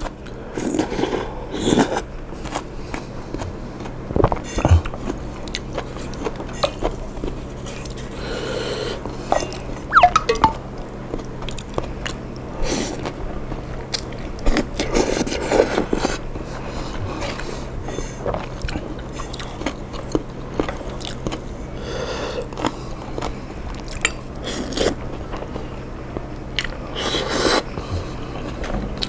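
A person eating instant noodles with seafood and egg close to the microphone, with irregular chewing, biting and mouth smacks.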